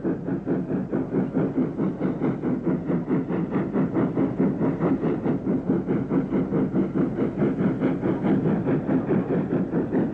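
NCC WT class 2-6-4 tank locomotive working a train, its steam exhaust beating steadily at about four beats a second.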